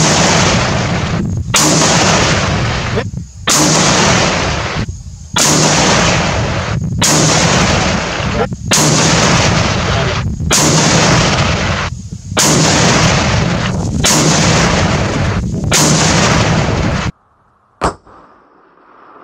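Scoped rifle fired from the prone position, about ten loud shots in quick succession, each blast ringing out until the next; the sequence stops abruptly near the end, followed by a single short sharp sound.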